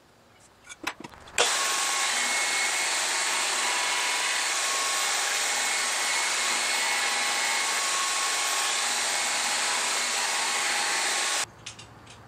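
Vertical bandsaw cutting through 2-inch steel angle, a loud steady cutting noise that starts abruptly about a second and a half in and stops abruptly near the end. A few small clicks from handling the steel come before it.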